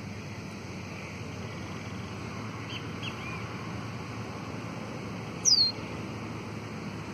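Caboclinho (capped seedeater) warming up to sing in the tiu-tiu style. It gives a few soft short calls, then, about five and a half seconds in, one loud, quick whistle sliding steeply down in pitch. A steady low rumble of background noise runs underneath.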